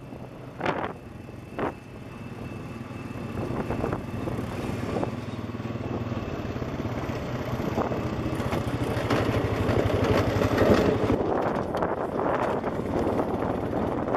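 ATV engine running under way on a gravel trail, getting louder over the first several seconds as it picks up speed, with two short knocks about a second in.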